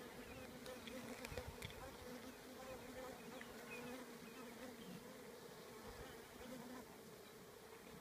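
Steady low hum of a honeybee colony massed on the comb inside an opened hive, with a few faint clicks about a second in.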